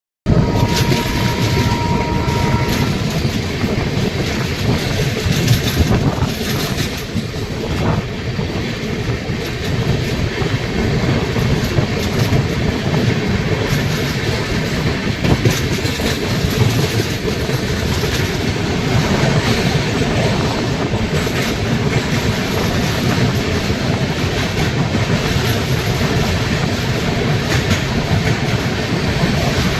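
A moving passenger train running steadily along the track, a continuous loud rumble and rattle of wheels and carriages on the rails.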